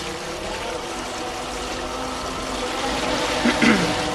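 Twin Honda BF225 V6 four-stroke outboards idling in gear, one in forward and one in reverse to spin the boat, with water churning and splashing around the stern. A brief sliding sound comes a little before the end.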